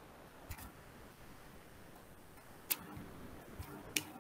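Faint background hiss over an open call microphone, with a few soft clicks; the sharpest comes a little past halfway.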